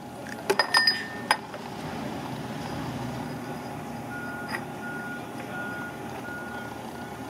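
A few sharp metallic clicks in the first second and a half, then a steady vehicle engine rumble. From about four seconds in, a vehicle's reversing alarm beeps about twice a second.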